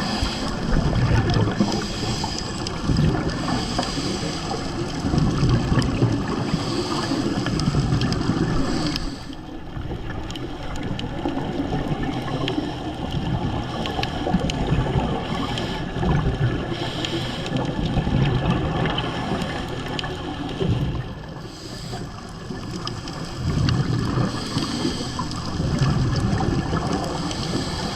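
Water churning and gurgling in an uneven, surging wash, with dips about nine seconds in and again about twenty-one seconds in.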